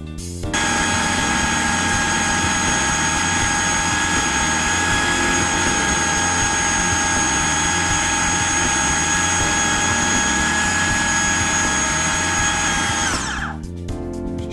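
Electric food processor motor running steadily with a whine as it blends thick hummus, while garlic oil is added through the feed tube. It starts about half a second in, then winds down near the end with a falling whine.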